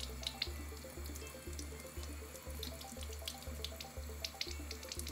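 Tap water running from a bathroom-sink faucet and splashing over a wet kitten held under it, with background music beating steadily about twice a second.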